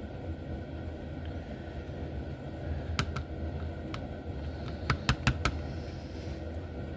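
Small, sharp clicks of a hand tool picking at an HO slot car motor's brush barrel to free a stuck brush spring: a few scattered clicks, then a quick run of four about two-thirds of the way through.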